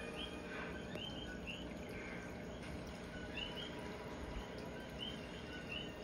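Small animals chirping: short high chirps repeating irregularly, one or two a second, over a steady background hiss.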